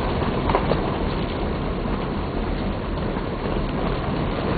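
Steady car engine and road noise, heard from inside a moving car.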